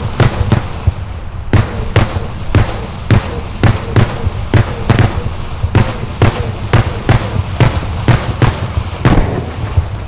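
Aerial firework salutes going off in quick succession, a rapid series of loud bangs at about three to four a second, with a brief lull about a second in.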